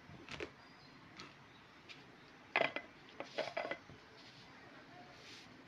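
Plastic plates and dish covers being handled and set down on a table: a few scattered knocks and clatters, most of them about halfway through.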